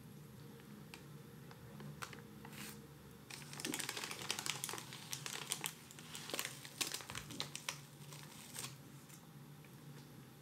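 Parchment paper crinkling and crackling in irregular bursts as it is peeled off the sides of a baked sponge cake. A few light ticks come first, the crinkling is densest from a few seconds in, and it dies away near the end.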